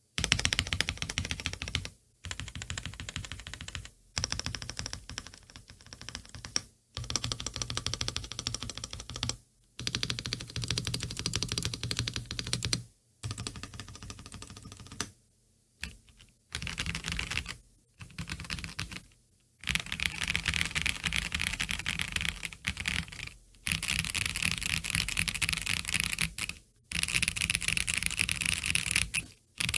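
Typing on a Monsgeek mechanical keyboard with stock, unlubed Gazzew U4T V2 tactile switches: a rapid clatter of keystrokes in runs of a few seconds, broken by about ten short pauses.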